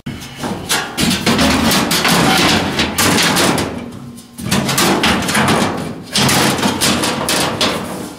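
Sheet metal being worked and handled: a large steel sheet rattling, scraping and clanking as a shelf panel is run through a hand-cranked bead roller and then fitted into a steel tube frame. The clatter comes in two stretches with a short break about four seconds in.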